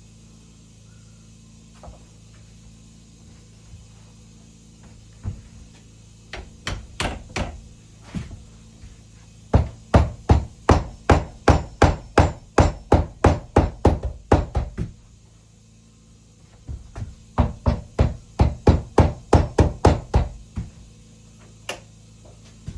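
Hammer blows: a few scattered strikes, then a long fast run of about four blows a second, a short pause, and a second run of blows.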